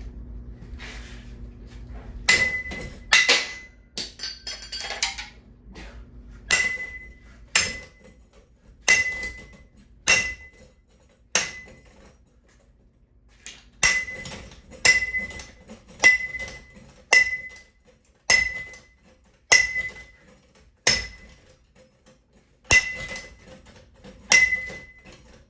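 Blows struck one after another on a ceiling fan's metal parts as it is smashed apart, each hit ringing briefly at the same clear pitch. They come about one a second, with a short pause about halfway through.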